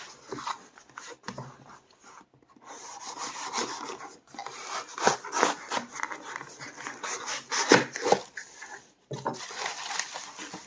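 Hands handling and opening a shipping package: cardboard and paper rubbing and scraping, with irregular knocks and clicks.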